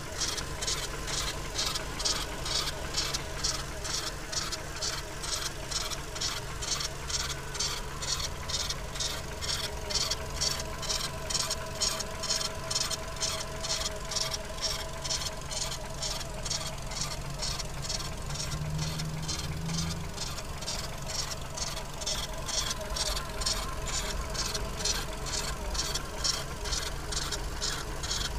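Volkswagen Golf IV 1.6 BFQ engine running at idle with a high squeak from the timing-belt area, repeating in quick, evenly spaced chirps over a steady low engine hum.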